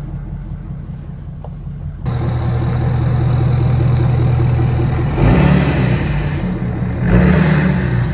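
Ford 6.7 Powerstroke V8 turbodiesel running, its note getting louder and heavier about two seconds in. Two louder stretches of rushing, scraping noise about five and seven seconds in, each about a second long: the oversized mud-terrain tyres rubbing the plastic inner fender liner as the truck turns.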